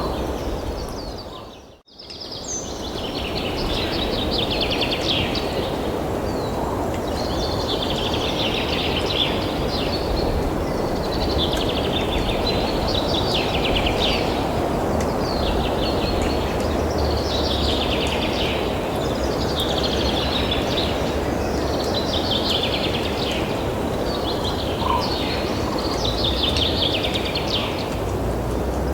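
Outdoor background noise with a small bird calling over and over: a rapid rattling phrase repeated about every two seconds. The sound cuts out briefly about two seconds in.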